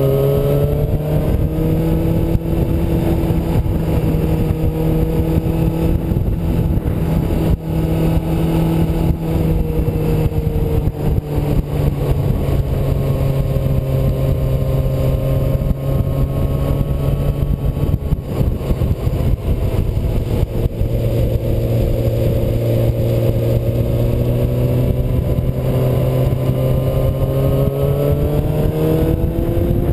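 Yamaha R6's inline-four engine running under way, heard from on the bike with a steady rush of wind noise. Its pitch rises in the first couple of seconds, drops about a third of the way through, then climbs again near the end as the rider works the throttle.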